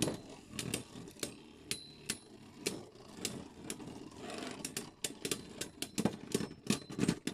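Two Beyblade spinning tops running in a clear plastic stadium, whirring and clacking against each other in irregular sharp hits, several a second, with some of the loudest hits near the end.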